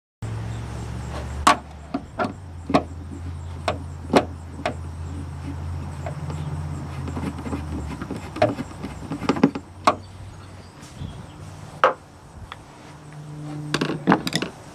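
Scattered sharp clicks and knocks of the plastic cabin-filter cover and its screws being handled and clipped down, with a cluster of knocks near the end, over a steady low hum.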